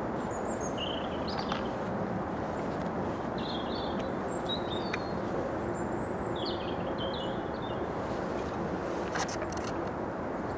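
Small birds giving short, scattered chirps over steady outdoor background noise, with a few soft clicks near the end.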